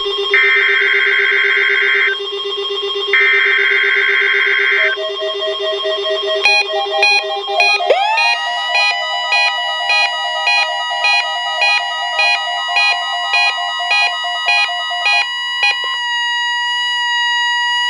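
Several weather alert radios sounding their alarms at once for a NOAA Weather Radio weekly test: electronic beeping in overlapping rhythms. About eight seconds in, a steady high warning alarm tone swoops up into place and holds, and one radio's beeping stops near the end.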